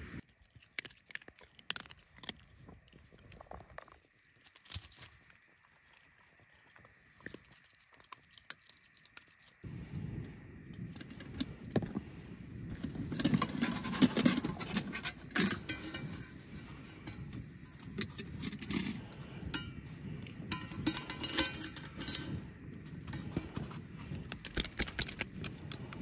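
Titanium camp cookware being handled: a metal pot and lid clinking and rattling in short clusters. For about the first ten seconds there are only a few faint clicks. After that a steady low rumble sits underneath the clinks.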